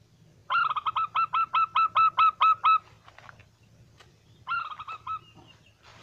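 Recorded zebra dove (perkutut) call played as a lure through a small handheld speaker: a fast run of about eleven clipped notes, then a shorter run of four or five about two seconds later.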